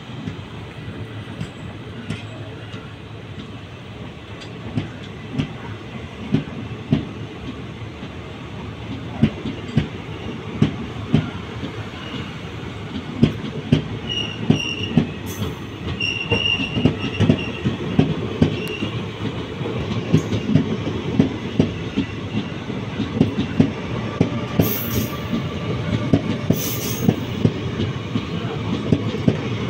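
Indian Railways express coaches running through a station without stopping: a steady rumble with regular clickety-clack from the wheels crossing rail joints, growing louder. A high wheel squeal comes and goes around the middle.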